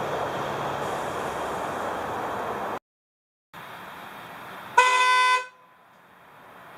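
Steady background noise that cuts off abruptly, then one short, loud blast of about two-thirds of a second from a Viking V621K dual-trumpet air horn set, fed by its electric compressors.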